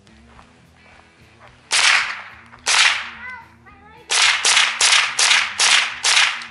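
Smith & Wesson M&P 15-22, a .22 LR semi-automatic rifle, fired eight times. Two shots come about a second apart, then six follow in quick succession, each a sharp crack that trails off briefly.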